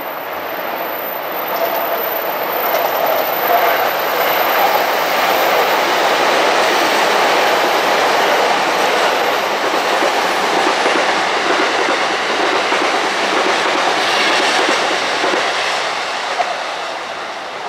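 JR East electric commuter train passing, its wheels running over the rails. The sound builds over the first few seconds, holds steady through the middle, and fades near the end.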